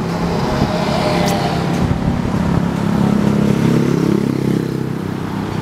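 Diesel-electric locomotive of an approaching passenger train, its engine running with a steady drone that shifts in pitch about four seconds in.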